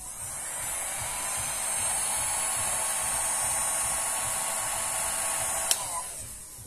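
Electric heat gun blowing hot air across wet epoxy resin to push it into waves: a steady fan rush with a thin whine that builds over the first couple of seconds and then holds. A sharp click comes near the end, after which the blower dies away.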